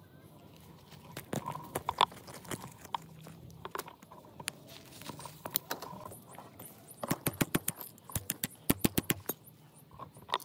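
Sharp knocks and clicks at an irregular pace, with a quick run of taps between about seven and nine seconds in.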